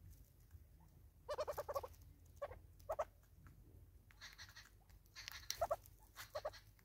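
Southern red-billed hornbill clucking: a quick run of about eight nasal notes, then single clucks and another short run near the end, with scratchy rustling in between.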